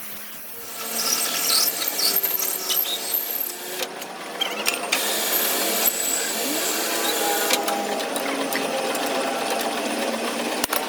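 Metalworking power tool running on a steel axle, starting up about a second in and running steadily with scattered clicks.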